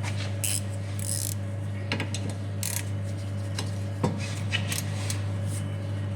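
Hand tools clinking and scraping on the rear brake caliper's mounting bolts as they are worked loose: irregular metal clicks and short rasps, the sharpest clink about four seconds in.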